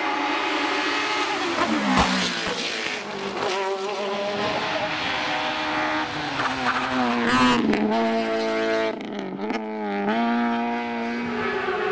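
Hillclimb race car engines at full throttle, the pitch climbing through the revs and dropping sharply at each gearshift, with a sharp crack about two seconds in.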